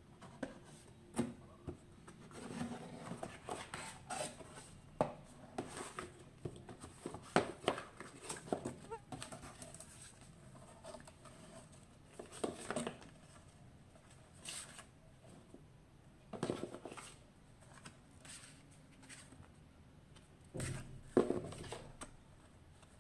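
Paper manuals and leaflets rustling and crinkling as they are pulled out of a cardboard camera box, with the box flaps knocked and scraped now and then. The crinkles and taps come irregularly, with a few louder rustles.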